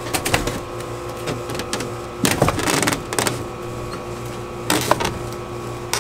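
Painted plywood boat floor being shifted and pressed into place in an aluminum jon boat: scattered knocks and clicks, with a longer scraping rub a little over two seconds in and a shorter one near five seconds, over a steady hum.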